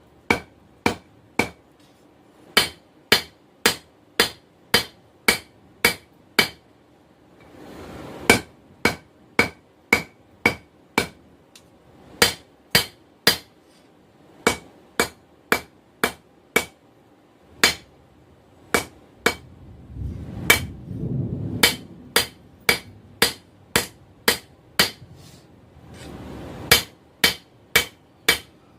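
Hand hammer striking hot steel on an anvil, drawing out a knife blank: steady runs of blows about two a second, each with a short ring from the anvil, broken by a few brief pauses.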